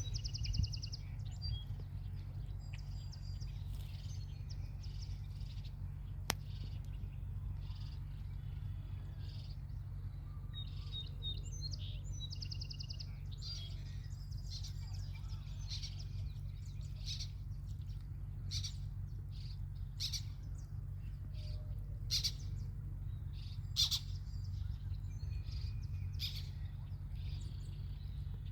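Small birds chirping, with a couple of short rapid trills and many scattered sharp chirps, over a steady low rumble.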